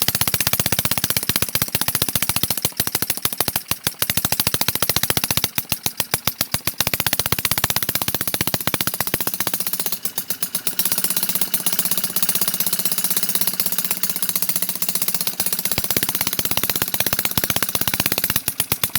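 Small homemade two-stroke engine, built from the internals of a refrigerator compressor, running with a rapid, uneven string of sharp firing pops. The running lightens for a few seconds about halfway through, then returns to its earlier sound.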